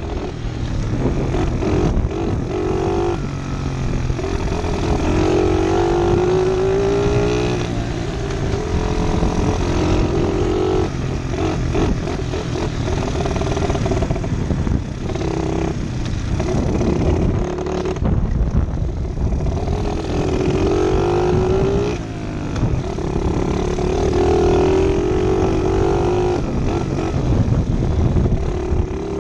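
Small pit bike engine running as it is ridden, its pitch climbing under throttle and falling back several times.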